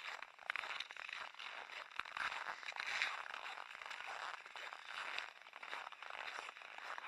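Irregular crunching and scraping of movement on packed, groomed snow.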